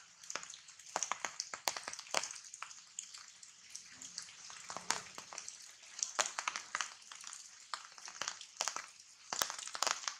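Rain falling on tree foliage: many irregular, sharp drops tapping on leaves over a steady high hiss.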